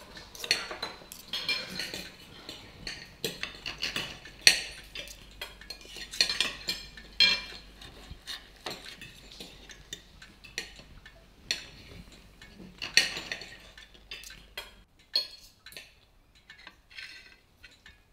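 Knives and forks clinking and scraping on china plates as several people eat a meal, a steady scatter of small clicks that thins out in the last few seconds.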